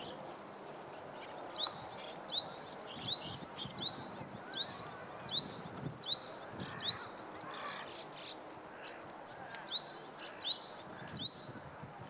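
Japanese tit singing its spring song: a quick high two-note phrase, each ending in a short upward sweep, repeated about twice a second in a long run. After a pause of about two seconds comes a shorter run.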